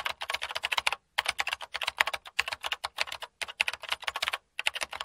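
Rapid, irregular clicking, several sharp clicks a second, like keys being typed, with a short break about a second in and another near the end.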